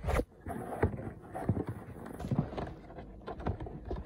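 Light handling noises: scattered soft knocks and clicks as a boxed toy's cardboard-and-plastic packaging is handled.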